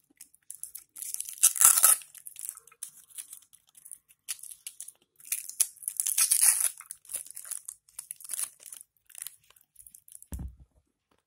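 Thin clear plastic packaging being crinkled and torn open by hand, in irregular crackling bursts, loudest about two seconds in and again around six seconds in.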